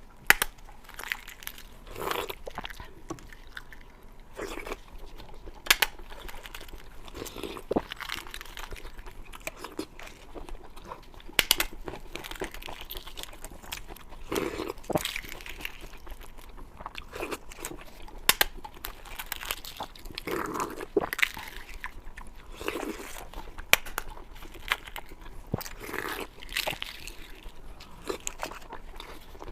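Close-miked eating of balut (boiled fertilised duck eggs): biting and chewing with crunches and sharp clicks at an uneven pace.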